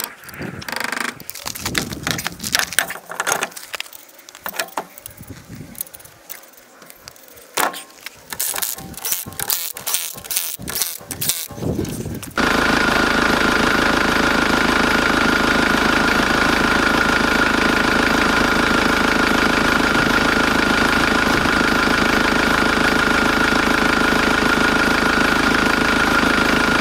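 Clicks and rattles of a ratchet and spanner working the bolts of a Ford Transit front brake caliper. About twelve seconds in, this cuts abruptly to a loud, steady mechanical drone with a constant high whine, which holds unchanged until near the end.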